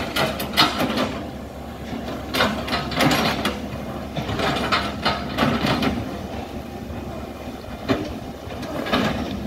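Hitachi excavator's diesel engine running steadily, with clusters of knocks, cracks and clatter as the bucket chops oil palm wood.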